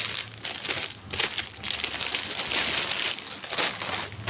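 Thin clear plastic packaging bag crinkling and rustling in irregular bursts as a garment is pulled out of it by hand.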